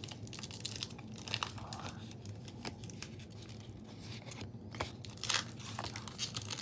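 Pokémon trading cards being handled and slid across one another, papery rustling with scattered sharp flicks and snaps as cards are moved through the stack, over a faint low hum.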